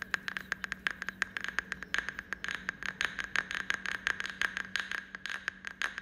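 Rapid, irregular rattling clicks, about ten a second, over a faint steady low hum.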